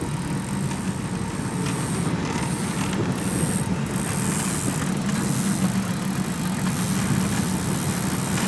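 Fishing boat's motor running steadily at trolling speed: a low, even drone with a steady hiss of wind and water over it.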